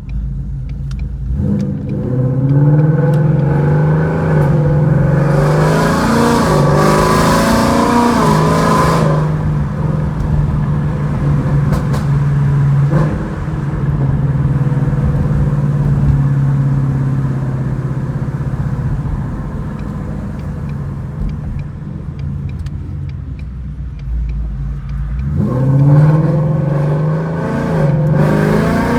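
2018 Mustang GT's 5.0 V8 through long-tube headers and a Borla cat-back exhaust, heard from inside the cabin. The revs climb under hard acceleration from about two seconds in to about nine seconds, settle into a steady lower cruise, then climb again near the end.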